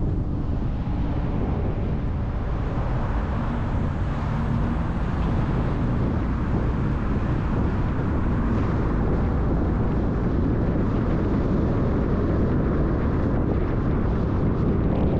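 Steady road noise of a car driving: a low, even rumble of tyres on pavement mixed with wind, with no sudden events.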